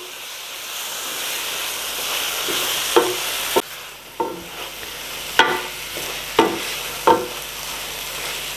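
Marinated beef sizzling in hot oil in an aluminium pot while a wooden spoon stirs it. In the second half the spoon knocks against the pot about once a second, each knock ringing briefly.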